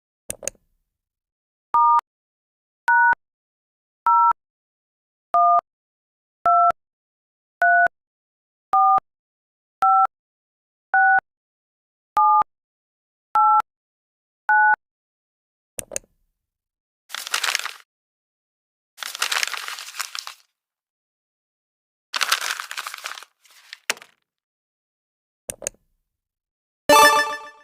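A string of editing-app sound effects: a click, then eleven short two-tone beeps about a second apart, pitched like touch-tone phone keypad tones, followed by clicks and three short noisy bursts, and a brief pitched chime near the end.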